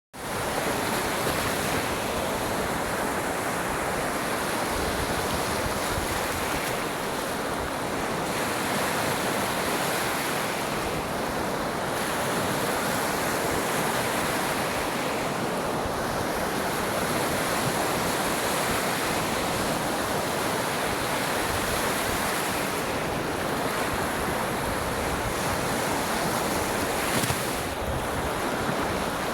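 Waves washing onto a beach: a continuous, even rush of surf that swells and eases, with a short louder surge near the end.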